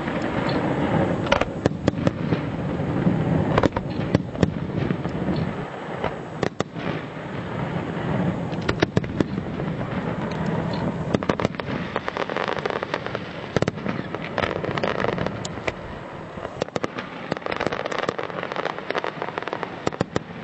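Fireworks display: a dense run of sharp bangs and crackling bursts over a continuous low rumble of shells going off.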